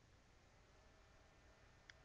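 Near silence: faint room tone with a steady hum and one tiny click near the end.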